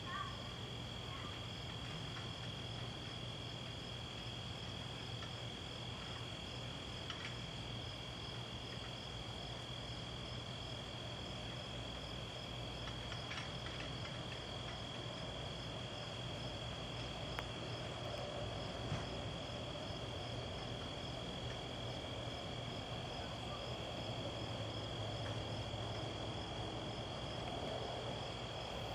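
Crickets chirping: a continuous high trill with a regularly pulsing chirp above it, and a faint low steady hum underneath.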